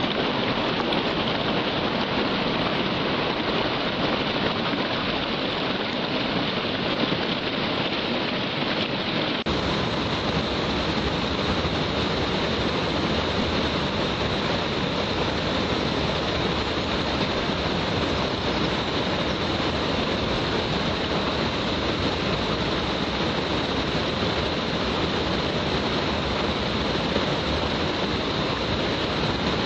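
Waterfall pouring steadily, a continuous rush of falling water. About ten seconds in, the rush turns deeper and fuller.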